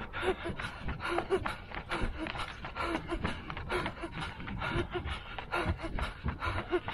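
A runner panting hard at full sprint effort, with quick rhythmic footfalls on asphalt.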